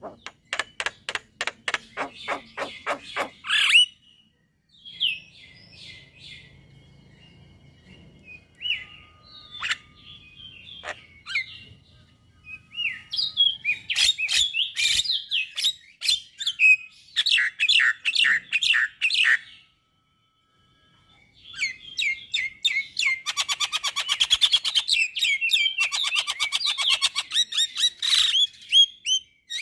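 Male Javan myna singing: bouts of fast, harsh clicking rattles and chatter mixed with short whistled notes. It breaks off briefly about two-thirds through, then returns with a long, dense bout of chatter.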